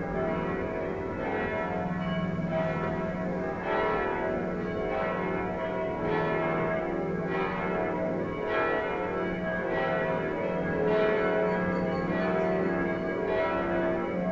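Church bells rung in a festive peal: several bells struck in turn, a new stroke about every half second to second, their tones overlapping in a continuous ringing.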